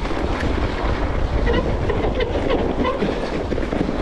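Wind buffeting the helmet-camera microphone at speed, over the steady rumble and rattle of a mountain bike riding down a snowy trail.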